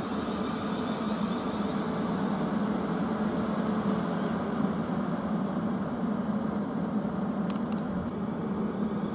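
A South Western Railway Class 450 Desiro electric multiple unit running at low speed, a steady drone of its traction equipment and wheels on the rails. A few sharp clicks come near the end.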